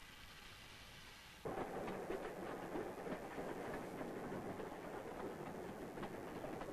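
A soft hiss from an approaching narrow-gauge steam train, then, after a sudden cut about a second and a half in, the louder rattle and rumble of the train running along the track, heard from on board.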